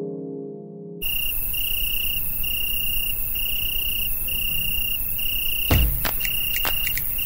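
A harp music phrase dies away, then about a second in cricket chirping cuts in abruptly. The chirps are high-pitched and pulse evenly, roughly two a second, over a steady hiss. Near the end come a few sharp clicks and a low thump.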